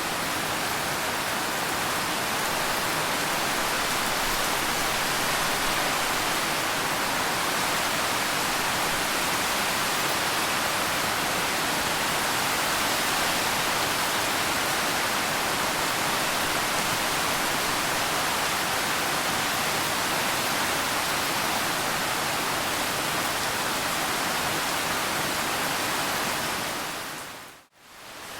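Steady, dense rain falling as an even hiss, with no single drops standing out. It fades away almost to nothing and swells back in about a second before the end.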